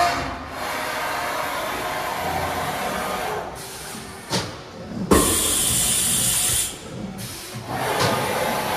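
Haas VM-6 vertical machining centre making rapid moves: axis servo drive noise and the table sliding on its ways, stopping and starting twice. There is a sharp click a little past the middle, then a loud hiss for about a second and a half.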